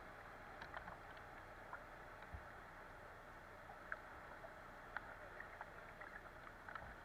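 Faint, steady rush of shallow river water running past a kayak hull, with scattered small ticks and splashes.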